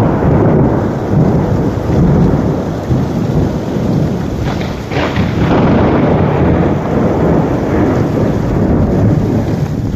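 Storm wind gusting hard over heavy rain, buffeting the phone's microphone in a loud, low rumble that rises and falls with the gusts, with one sharper gust about halfway through.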